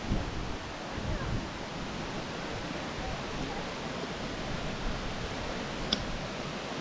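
Steady rushing noise of a waterfall, with a few low bumps in the first second or so and a single sharp click near the end.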